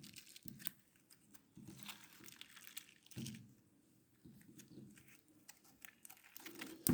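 Basic white-glue slime being poked and pressed by hand, giving faint, irregular crunchy crackles and clicks.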